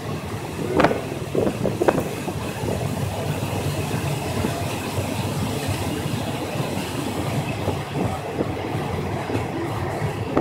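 Train running along the track, heard from aboard a carriage: a steady rumble and rush of wheels on rail. Two brief louder knocks come about one and two seconds in.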